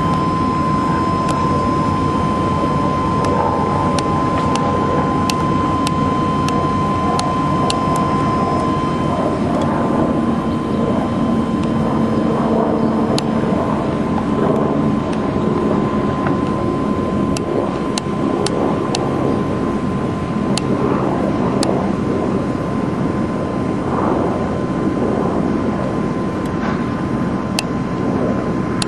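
Helicopter flying overhead: a steady engine-and-rotor drone with a thin high whine that fades through the middle and returns near the end.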